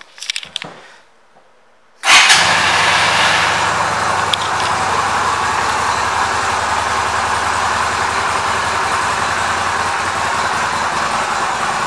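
A few light clicks, then a 2016 Yamaha V Star 250's air-cooled V-twin engine starts about two seconds in, loudest at the catch, and settles into a steady idle.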